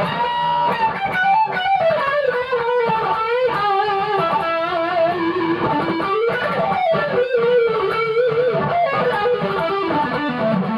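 Vintage Metal Axxe electric guitar playing a metal lead line, with wavering vibrato on held notes, pitch bends, and a falling run near the end.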